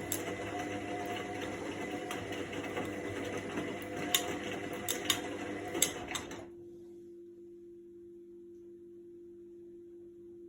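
Indesit front-loading washing machine on its quick-wash programme, its motor turning the drum with a steady whirr and a few sharp clicks. About two-thirds of the way through, the drum stops suddenly and a quieter, low steady hum is left.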